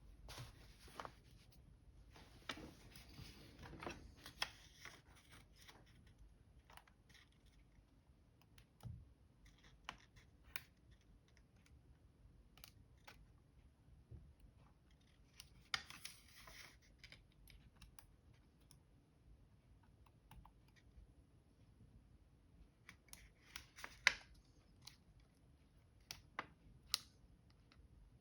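Scattered clicks and taps with a few short scraping rustles, from hands working on a laptop's plastic case and keyboard parts. One sharp click about twenty-four seconds in is the loudest.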